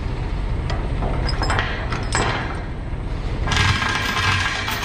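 Steel tie-down chain rattling and clinking as it is pulled hand over hand across a flatbed load, taking up slack before the ratchet binder is tightened. The rattling is loudest near the end.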